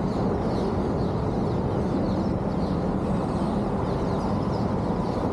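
Birds chirping faintly and repeatedly over a steady rushing noise.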